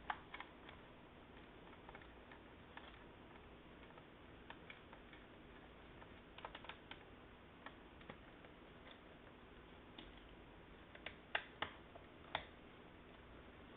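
Faint scattered small clicks and ticks of a precision Phillips screwdriver working two keyboard screws out of a Dell Inspiron 1501 laptop, with a few sharper clicks near the end.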